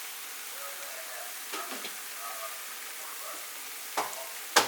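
Ground bison meat sizzling in a frying pan, with a few sharp knocks of a utensil against the pan, the loudest near the end.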